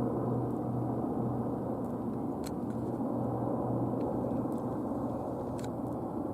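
Steady low engine-like rumble, with a low hum that swells and fades every second or so.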